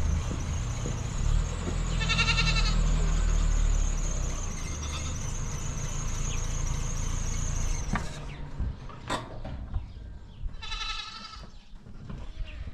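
A goat bleating twice, a wavering call about two seconds in and another near the end. Under the first call runs a low steady rumble that cuts off suddenly about eight seconds in, followed by a couple of sharp clicks.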